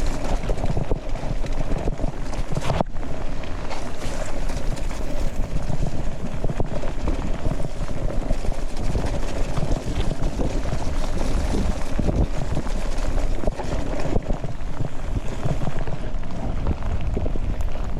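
Wind buffeting a helmet- or bike-mounted GoPro microphone during a fast mountain-bike descent in heavy rain, mixed with the rush of wet tyres and occasional knocks from the bike over bumps.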